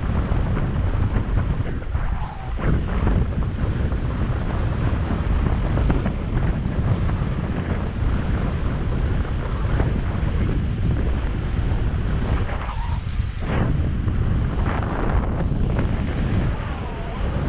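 Steady, loud wind buffeting the microphone of a camera moving along a road, a low rumbling noise that flutters briefly a couple of times.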